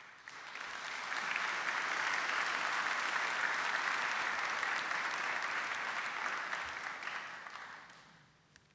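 An audience applauding: the clapping swells over the first second, holds steady, then dies away about eight seconds in.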